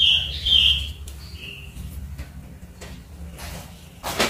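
Clear plastic sticker sheets being handled and shifted, with a short rustle near the end. Three short high-pitched tones sound in the first second and a half over a steady low hum.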